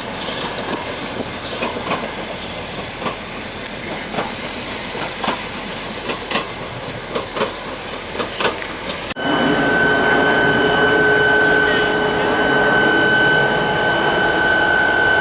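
Train cars rolling past, their wheels clicking irregularly over rail joints. About nine seconds in the sound changes abruptly to a louder, steady high-pitched tone with overtones that holds to the end.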